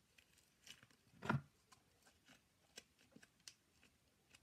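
Faint sticky clicks and crackles of fluffy butter slime being handled and pressed into its clear plastic tub, with one louder sound a little over a second in.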